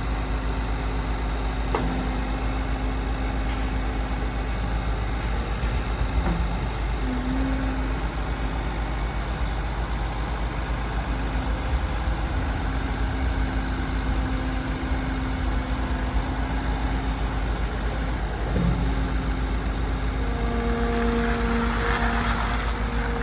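Bobcat T66 loader's diesel engine running steadily at idle. Near the end, a steady whine and a hiss join in.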